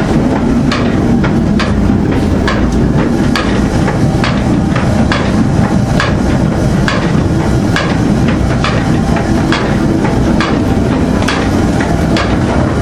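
Windmill machinery running while grinding wheat: a steady heavy rumble with a regular knock a little faster than once a second.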